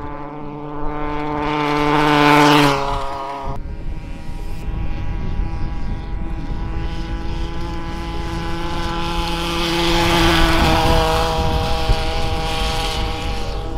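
Stihl MS 170 chainsaw's small two-stroke engine driving a kid scooter at high revs. It grows louder to a peak about two and a half seconds in, then breaks off abruptly. It builds again to a second, louder passage near ten seconds in, its pitch easing down a little after that peak.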